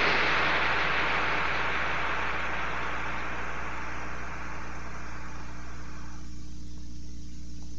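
Industrial noise music: a dense, rumbling drone with a steady low hum under a wash of hiss, the hiss slowly fading away until it has mostly gone near the end.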